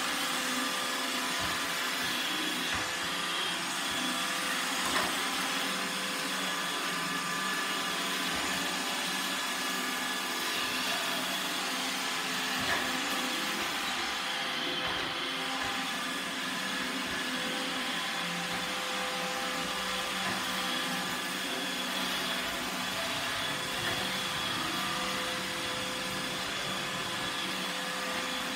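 iRobot Roomba 895 robot vacuum cleaner running: a steady motor and brush hum with a high, even whine, and a couple of small knocks as it moves about.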